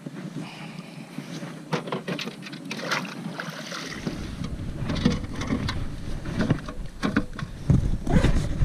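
Knocks, clicks and rustling as a freshly caught bass and gear are handled aboard a plastic fishing kayak, irregular sharp knocks loudest near the end. A low rumble joins about four seconds in.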